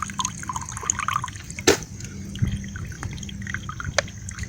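Water dripping and trickling out of a water filter into a container, in many small irregular drops, with one sharp click a little under two seconds in.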